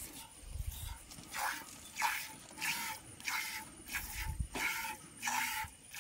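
A goat being milked by hand: regular jets of milk squirting into a container, a little under two squirts a second, starting about a second and a half in.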